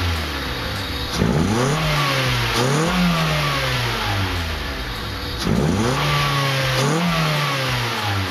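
Honda four-cylinder engine fitted with a short ram intake, revved twice in quick succession and let fall back, then revved in another quick pair, with loud intake noise.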